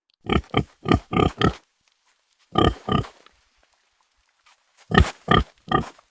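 Domestic pig grunting and oinking in quick runs of short grunts: about five in a row, a pause, one longer grunt, then another run of about four near the end.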